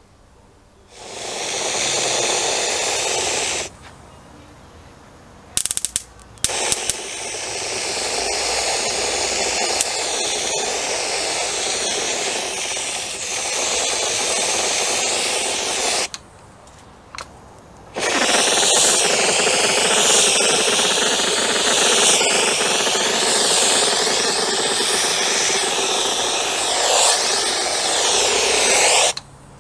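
Powder coating gun spraying, a steady rushing hiss of air and powder in three bursts, the longer two lasting about ten seconds each. A few sharp clicks come just before the second burst.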